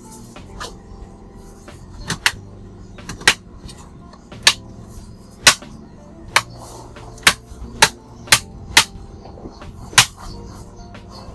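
A series of sharp, loud clicks or taps at irregular intervals, roughly one a second, over faint steady background music.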